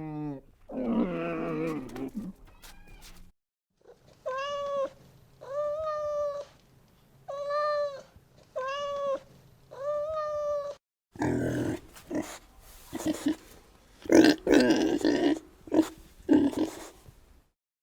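Animal calls from different animals in turn: a short call near the start, then six short pitched calls, then a run of rougher, noisier calls.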